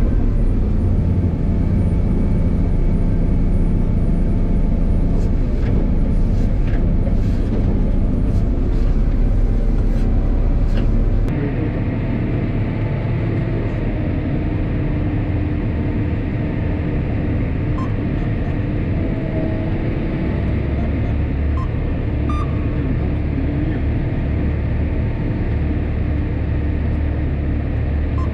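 A heavy engine running steadily with a deep rumble. Its sound changes abruptly about eleven seconds in and then carries on steady with a higher hum.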